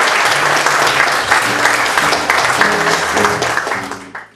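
Audience applauding over live music from acoustic guitar and double bass, with short plucked bass notes. It all fades out near the end.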